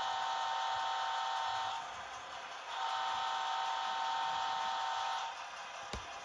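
Two long horn blasts from the sound system of an HO-scale model locomotive, the two-long signal to release brakes and proceed. About 6 s in there is a single sharp click.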